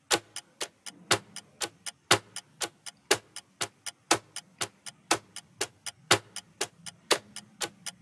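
Quiz countdown-timer sound effect: clock-like ticking, about four ticks a second, with the loudest tick on each whole second as the timer counts down.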